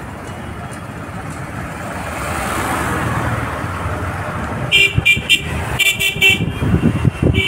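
Steady street traffic rumble. From about five seconds in, a vehicle horn gives a quick series of short, sharp beeps in two bursts.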